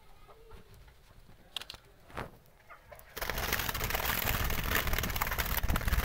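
Faint bird calls and a few clicks, then about three seconds in a loud, close rustling and scraping noise of rapid crackles starts and carries on to the end.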